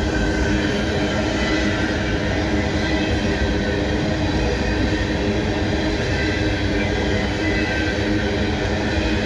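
Freight cars of a coal train rolling past at a steady speed: a continuous rumble of steel wheels on rail with steady ringing tones over it.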